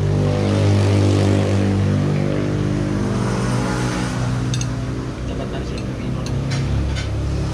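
A motor vehicle's engine running steadily close by, its low hum drifting slightly in pitch, with a few light clicks partway through.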